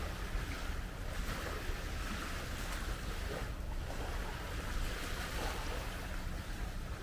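Steady wind rumbling on the microphone over small sea waves washing gently onto a sandy beach.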